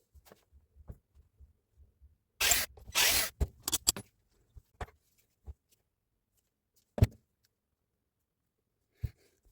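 Tools and metal parts handled on a workbench: small clicks and knocks, two short rattling bursts about two and a half seconds in, then a sharp knock about seven seconds in and a lighter one near the end.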